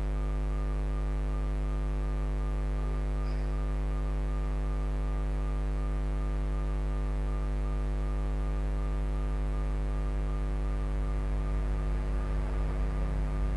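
Steady electrical mains hum: a low drone with a buzzy stack of evenly spaced overtones, constant throughout, picked up in the recording chain.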